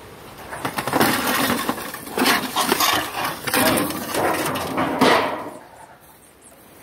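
Cardboard and corrugated roofing sheets being dragged and lifted off a pile of debris: a few seconds of loud scraping and clattering that dies away about five and a half seconds in.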